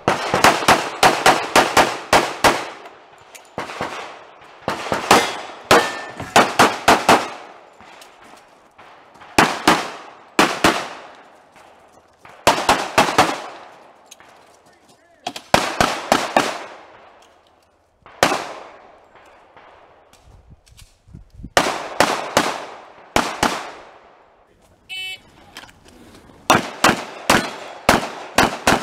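Handgun fired in rapid strings and pairs of shots, each shot with a short echo. A long fast string opens, followed by groups of two to four shots separated by pauses of one to three seconds as the shooter moves between positions.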